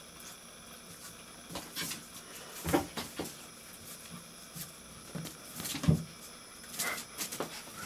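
Irregular knocks and taps of a bathroom cabinet door being jostled as a Maltese puppy jumps and tugs at a towel hanging from it, two of the knocks louder than the rest.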